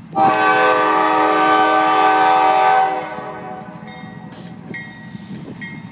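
A Norfolk Southern GE Dash 9-40CW freight locomotive's air horn sounding one long blast, a chord of several tones, cut off after about two and a half seconds. The lower rumble of the approaching train follows.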